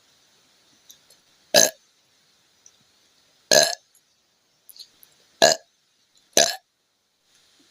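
A young woman burping four times, short loud soda burps from drinking a fizzy apple drink, the gaps between them shortening toward the end.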